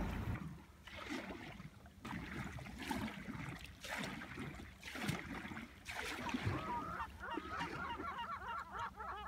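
Canoe paddle strokes in the water, about one a second. From about seven seconds in, a flock of birds on a sandbank calls in a dense chorus of many short, overlapping calls.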